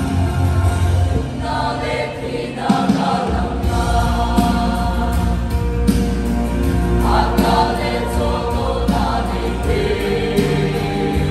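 Mixed church choir of young men and women singing in harmony, holding long sustained chords with no break.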